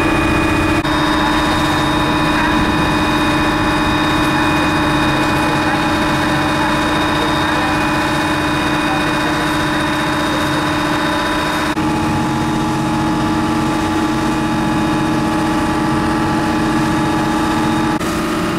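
Engine of a small passenger boat running steadily under way, a loud continuous drone with several steady tones; the drone changes abruptly about a second in and again near twelve seconds.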